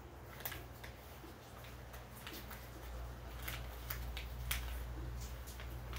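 Small plastic clicks and crackles from a squeeze bottle of epoxy colorant being worked in gloved hands to get the pigment out. A low steady hum comes in about halfway through.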